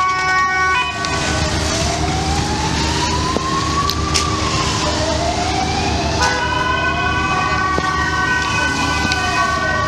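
Emergency vehicle siren in a slow wail, rising and falling about every four seconds, over the low rumble of engines. A second steady, held tone sounds at the very start and comes in again about six seconds in.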